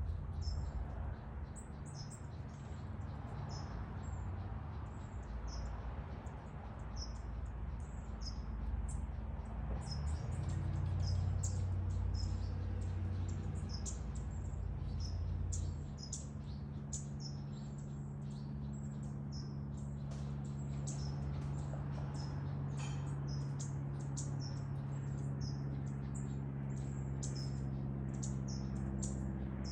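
Small birds chirping: many short, high-pitched calls repeated throughout. Under them runs a steady low hum that changes character about sixteen seconds in.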